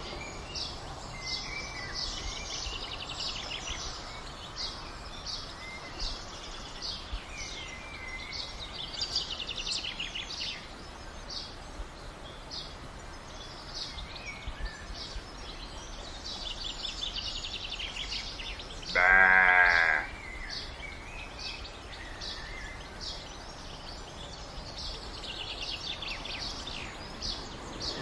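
A domestic sheep bleats once, loudly, for about a second some two-thirds of the way through, over continuous chirping and trilling of songbirds.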